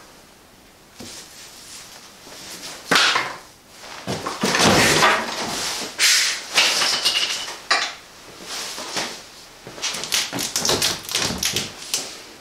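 A large cardboard shipping box and its plastic strapping being handled, in irregular stretches of rustling and scraping, with a quick run of short knocks on the cardboard near the end.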